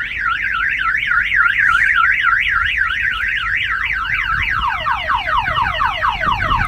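Aftermarket car alarm siren going off, set off by a knock on the window. It warbles up and down about three times a second, then switches around halfway through to rapid falling sweeps.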